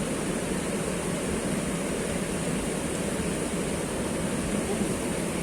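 Steady rushing of a river flowing fast over rocks, an even noise with no breaks.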